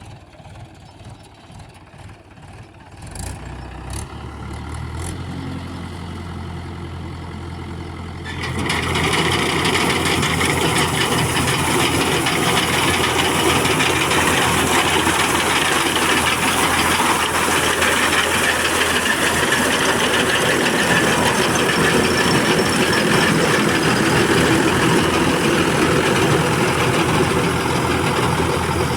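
A tractor engine starts and runs steadily with a low hum. About eight seconds in, a farm threshing machine driven by the tractor starts working on wheat, and a much louder, steady rushing clatter takes over.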